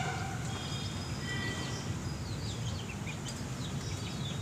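Birds chirping: a few short high whistles, then a quick run of falling chirps through the second half, over a steady low outdoor rumble.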